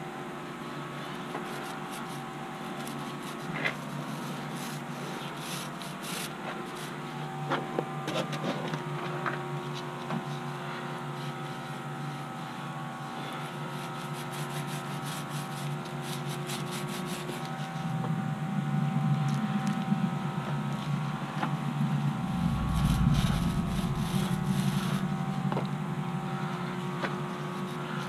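Paint being spread by hand over the canvas skin of a teardrop trailer's roof: a steady rubbing of the applicator on the fabric, with scattered small knocks, over a constant background hum. A low rumble swells in about two-thirds of the way through and is loudest a few seconds later.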